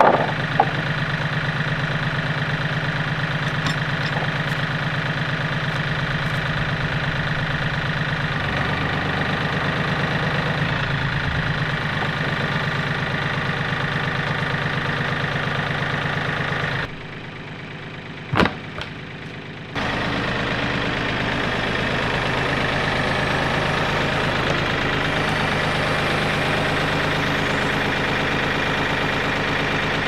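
Compact tractor's diesel engine running steadily with a front-end loader in use. A couple of sharp knocks right at the start, and past the middle a quieter stretch of about three seconds with one sharp knock before the engine sound returns.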